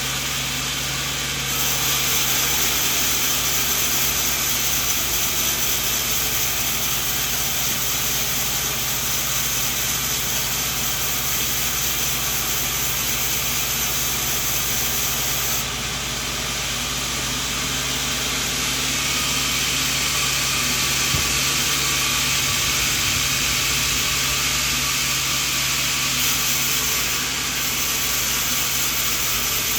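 Sawmill bandsaw running and cutting coconut wood: a steady machine hum under a loud, constant hissing saw noise. The noise shifts in level about a second and a half in, near the middle and near the end.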